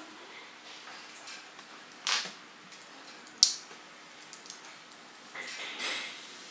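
Small plastic kit parts being handled and fitted together: a scrape about two seconds in, a sharp click a second or so later, and a longer rubbing scrape near the end.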